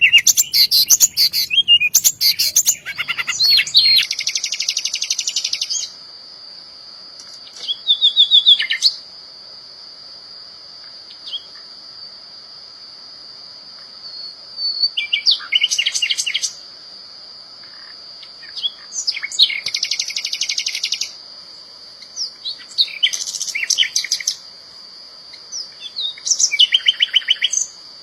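Small songbirds singing in bursts of rapid, high chattering trills every few seconds, over a steady high-pitched whine.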